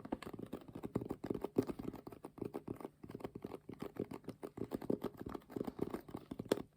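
A fast, dense run of soft taps and rustles right at the microphone, an ASMR trigger sound. It stops just before the end.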